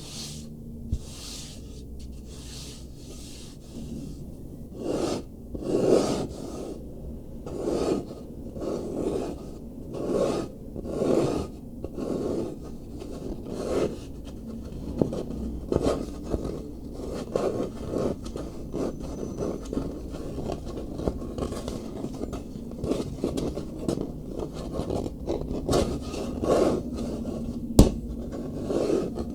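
Hand scratching and sanding a wooden surface in repeated rubbing strokes, about one a second at first, then shorter and quicker. A single sharp knock on the wood comes near the end.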